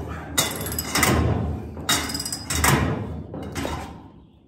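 Steel hinge pin press on a VW Beetle door hinge being cranked with a long steel lever bar: a run of sharp metallic clanks and rattles, about one every second, as the tool forces out a badly rusted hinge pin, fading away near the end.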